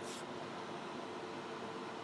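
Hobby spray booth's extractor fan running with a steady hum, while paint is sprayed; a brief high spray hiss cuts off just after the start.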